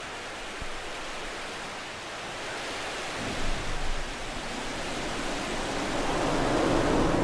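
Falcon 9 rocket's nine Merlin first-stage engines at liftoff: a steady rushing noise that swells in loudness and deepens into a heavy rumble from about three seconds in.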